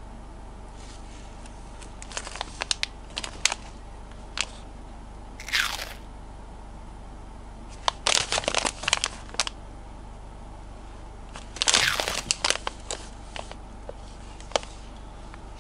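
Plastic candy pouches crinkling and crackling as they are handled, in several short bursts of sharp crackles.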